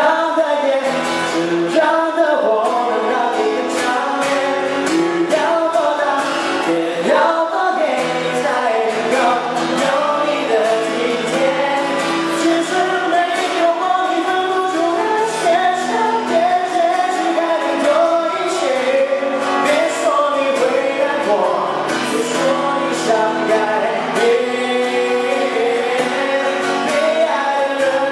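Live acoustic guitar strummed in steady chords while a harmonica in a neck holder plays the melody in held, bending notes.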